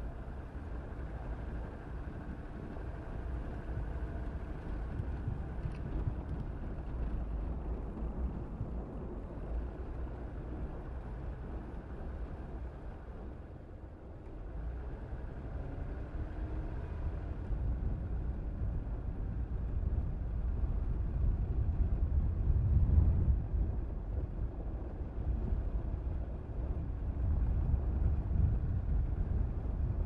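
A car driving, with a steady low rumble of engine and road noise. It eases off briefly about halfway through, then grows louder toward the end.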